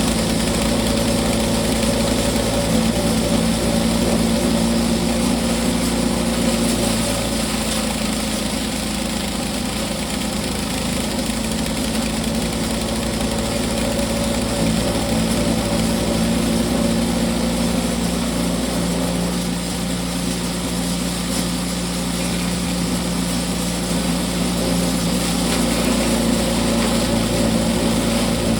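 Late-1970s Mighty Mac hammer mill wood chipper running steadily on its gasoline engine while Miscanthus stalks are fed in and shredded by the hammers.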